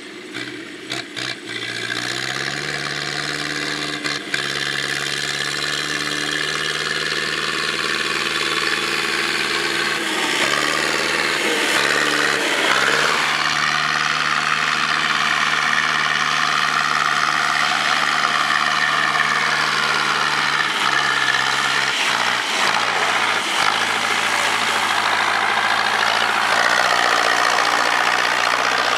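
Zetor 7211 tractor's four-cylinder diesel engine running steadily while mowing a meadow with a rear-mounted mower. The engine note shifts abruptly a few times as the sound jumps between passes.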